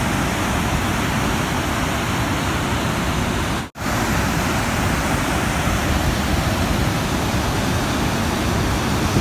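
River water pouring over a low dam: a loud, steady rush of noise, cut off for an instant about four seconds in.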